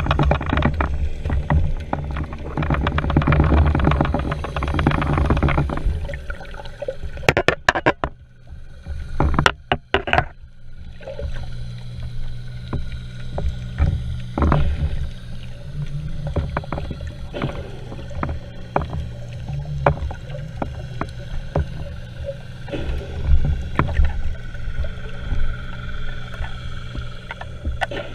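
Underwater sound heard through an action camera's waterproof housing while a freshly speared red mullet is handled on the spear shaft: water rumbling against the housing, a steady low hum, and many scattered clicks and knocks, with a cluster of sharp knocks and brief dropouts around eight to ten seconds in.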